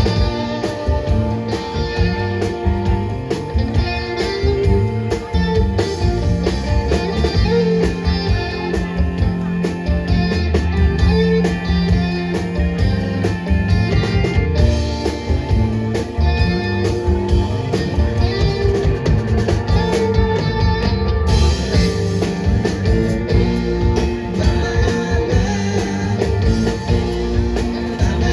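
Live band playing an instrumental break: guitar with drum kit keeping a steady beat.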